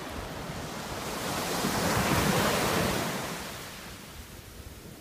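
Ocean surf: a wave breaks and washes up the sand, swelling to a peak about two seconds in and fading away over the next couple of seconds. Wind buffets the microphone underneath.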